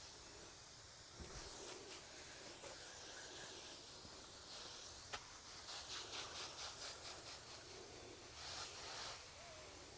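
Pump garden sprayer misting liquid in faint hissing spurts, several short bursts, including a quick pulsing run about six seconds in.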